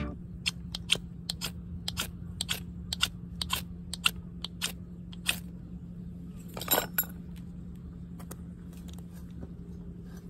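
A knife shaving a thin wooden stick into kindling: a run of sharp little cracks and scrapes, two or three a second, with one longer, louder scrape about two-thirds of the way through, then fainter clicks.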